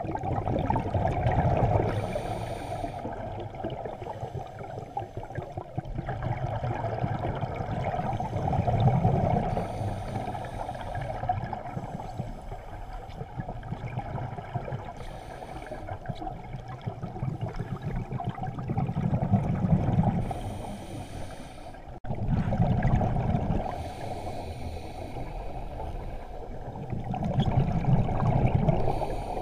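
Scuba diver breathing through a regulator underwater: exhaled bubbles gurgling out in swells every several seconds, with short hisses of inhalation between them.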